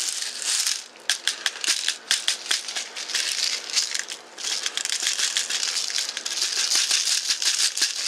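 Metal .177 BBs rattling as they are poured from a cut-down plastic bottle into the loading port of an Umarex full-auto BB gun: a dense stream of small clicks that thins briefly about a second in and again around four seconds.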